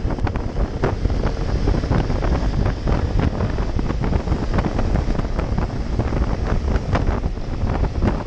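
Heavy wind buffeting the microphone of a motorcycle-mounted camera while the bike is ridden, with the motorcycle's engine running underneath and frequent crackles from the gusts.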